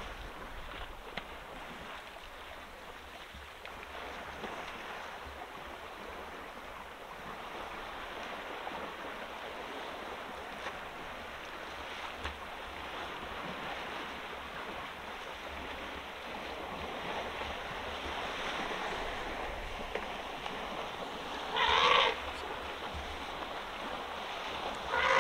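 African elephants wading and splashing through shallow water, a steady sloshing wash. About three-quarters of the way in an elephant gives a short, loud call, and another call comes right at the end.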